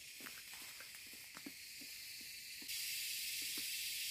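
Pot of water heating for coffee: a steady high hiss with scattered small ticks and pops. The hiss gets suddenly louder about three seconds in.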